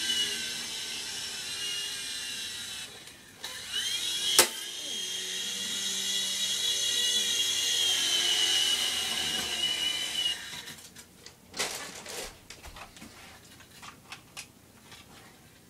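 Small remote-control helicopter's electric motor and rotor whining high and steady, dipping briefly with a sharp knock about four seconds in, then picking up again before cutting out about ten seconds in. Light clicks and taps follow.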